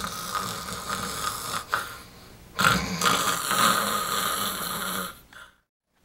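A person snoring, two long snores a second apart: one trailing off in the first second and a half, the next running about two and a half seconds. The sound cuts off dead near the end.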